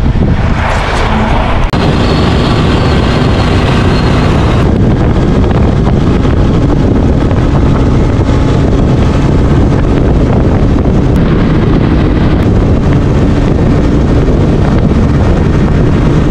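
1979 Suzuki GS750's air-cooled inline-four engine running steadily as the motorcycle rides along, with wind rushing over the microphone; the bike is quite noisy.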